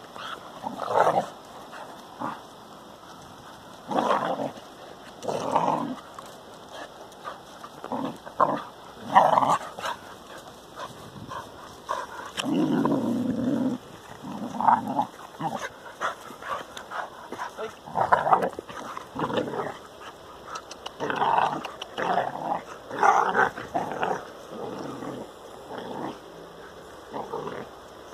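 Two young pointer-cross dogs growling at each other while play-fighting, in short irregular bursts, with one longer, lower growl about halfway through.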